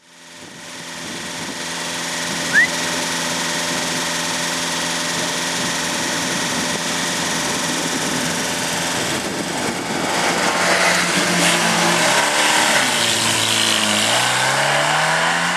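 Small hatchback car's engine running at held revs, then revving up and down as the car sets off through the slalom course. A brief high rising chirp sounds about two and a half seconds in.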